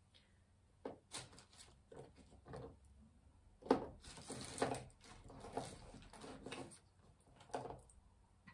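Faint handling noises from craft work at a table: a string of small knocks, clicks and rustles as paint pots and tools are picked up and put down, busiest about halfway through.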